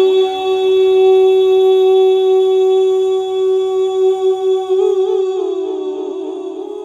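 A male naat reciter holds one long sung note on a single vowel. It stays steady for several seconds, wavers in a vocal ornament about five seconds in, then settles and fades toward the end.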